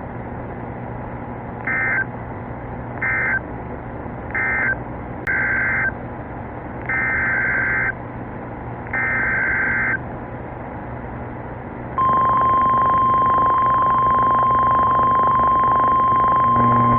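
Emergency Alert System data bursts on NOAA Weather Radio: six short buzzy bursts of digital data tones over the first ten seconds, the later ones longer. About twelve seconds in, the steady single-pitch weather radio warning alarm tone starts and holds, announcing the next severe weather warning.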